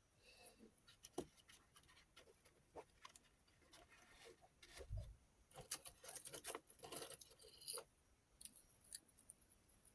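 Faint irregular clicking, scraping and rattling of small rotary tool accessories and their packaging being handled, with a soft thump about five seconds in.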